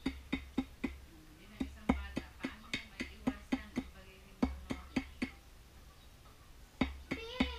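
Large knife blade chopping into a piece of jackfruit wood, carving it to shape: sharp knocks about three or four a second, in runs broken by short pauses.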